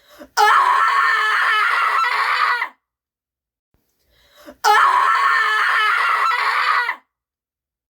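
A woman screaming in desperation, twice: two long, high, wavering screams of about two and a half seconds each, each preceded by a short sharp intake of breath and cut off into silence.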